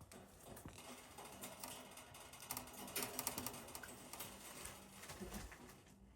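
A parrot crunching and nibbling a cookie with its beak: a rapid, uneven run of small crackly clicks, busiest about halfway through.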